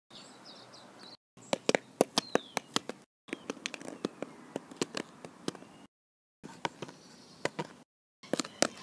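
Sharp hard taps and clicks, a few a second and irregular, in short stretches broken by abrupt cuts to silence, like a model horse's hooves being tapped on concrete. A bird chirps faintly in a quick run of notes near the start.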